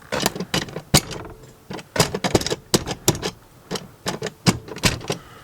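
Rapid, irregular sharp taps and knocks, several a second, as a porthole is worked into its snug cut hole in the narrowboat's wall.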